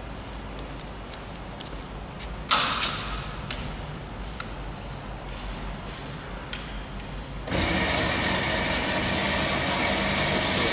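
A few clicks and knocks of the metal band saw being handled, then after about seven seconds the saw's motor switches on abruptly and runs steadily with a hum and whine.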